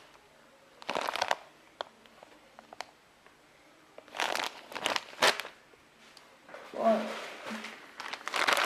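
Clear plastic bags of bead strands crinkling as they are handled. The crinkling comes in short bursts: one about a second in, a cluster about four to five and a half seconds in, and another from about six and a half seconds to the end.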